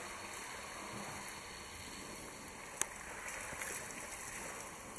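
Water spraying from a garden hose and splashing onto a baby elephant and the wet concrete floor, a steady hiss of running water. One sharp click a little under three seconds in.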